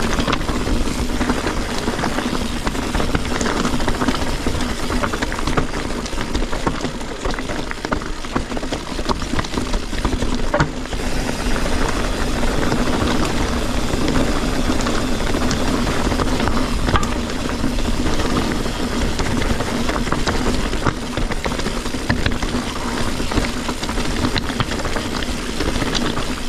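Full-suspension mountain bike on Maxxis Forekaster 29x2.20 tyres riding rough, rocky trail: a continuous rush of tyre and trail noise, with the bike rattling and knocking many times over the stones.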